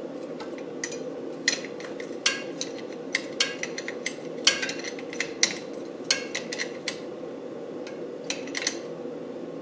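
A 17 mm spanner clinking against a nut as it is worked round: a string of irregular, sharp metal clinks over a steady hum.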